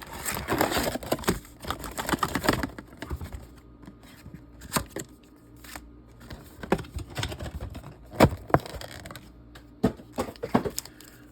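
Trading-card box packaging being opened by hand: crinkling and tearing for the first couple of seconds, then scattered sharp clicks and taps of cardboard being handled.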